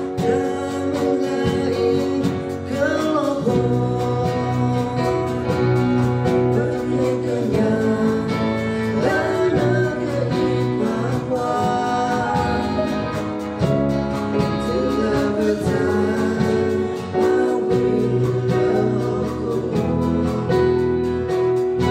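A song sung with guitar and other instruments accompanying; the sung melody moves over steadily held chords.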